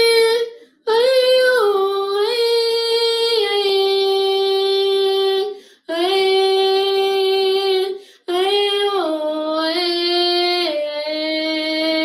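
A woman singing unaccompanied: long held notes in four phrases with short breaths between them, the melody stepping down in pitch.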